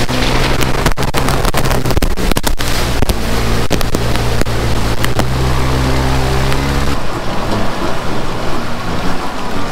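Off-road 4x4's engine running at a steady pitch, with wind noise on the unshielded microphone and many sharp clicks and crackles over it; the engine note falls away about seven seconds in.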